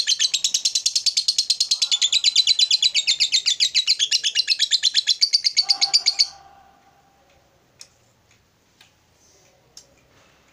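Lovebird giving its long, fast chattering trill ('ngekek'): a rapid, even string of sharp high chirps for about six seconds that then stops abruptly, followed by a few faint clicks.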